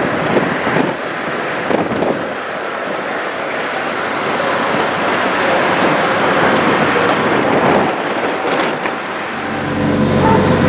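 Diesel semi-trucks running at a truck stop fuel island: a steady wash of engine and traffic noise. Near the end it gives way to a steadier, lower engine hum.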